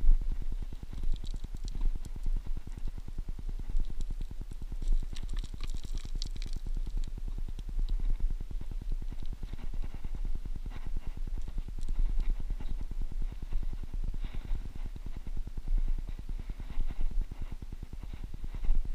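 Wind buffeting the camera microphone as a continuous low, fluttering rumble. Over it come scrapes and rustles of hands and clothing against limestone rock, a few seconds in and again over the last few seconds.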